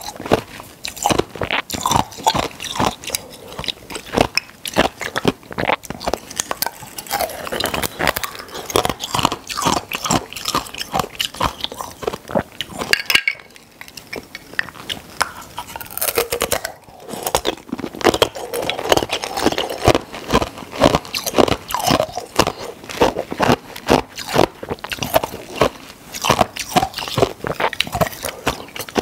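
Ice cubes bitten and crunched between the teeth close to the microphone: a fast, steady run of sharp cracks and crunches, broken by a couple of short pauses about halfway through.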